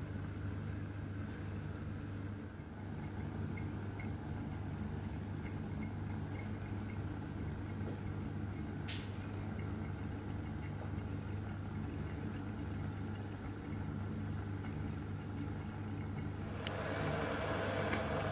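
Titanium alcohol stove burning steadily under a titanium pot, a low even rumble with a few faint ticks. Near the end a louder rushing noise comes in as the pot is lifted off and the flame flares up.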